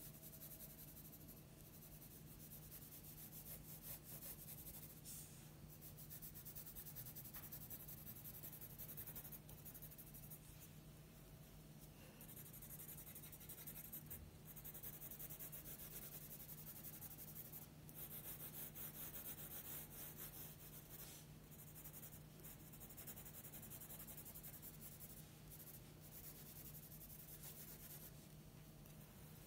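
Graphite pencil scratching on drawing paper in quick, short hatching strokes as cat fur is shaded, faint and in clusters, over a steady low hum.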